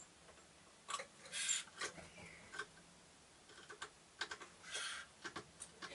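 Small birds, a varied tit and a great tit, at a seed feeder: irregular sharp taps and clicks of beaks and feet on the wooden perch and plastic keys, with two short rustling bursts, about a second in and near the end.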